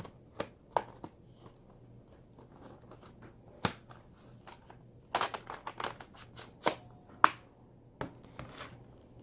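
Hands handling a plastic laptop, making scattered sharp clicks and short bursts of rustle and scraping. The loudest click comes about seven seconds in.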